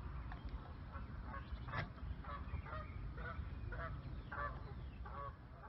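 Geese honking repeatedly, about one call every half second, over a low rumble.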